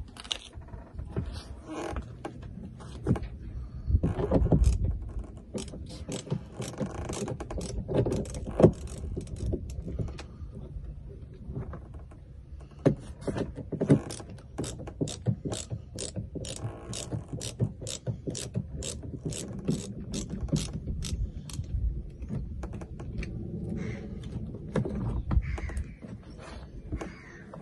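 Ratchet spanner clicking as a bolt on a small dinghy is turned, in runs of even clicks about two a second, with a few heavier knocks in between.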